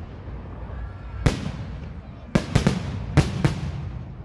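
Aerial fireworks shells bursting overhead. There is one sharp bang about a second in, then a quick volley of five bangs in the second half, each trailing off briefly.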